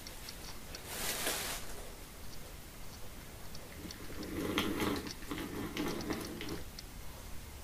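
Small geared DC drive motors of a Magician robot chassis whirring for about two seconds as the robot turns, starting about four seconds in. A brief hiss comes about a second in, with faint scattered ticks.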